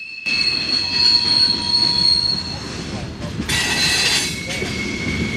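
Freight cars rolling down from a railroad hump, their wheels squealing in the yard's retarders, which grip the wheels to slow the cars to a set speed. Several high, steady squeals at different pitches sound over a low rumble, starting suddenly, with a louder squeal a little past halfway.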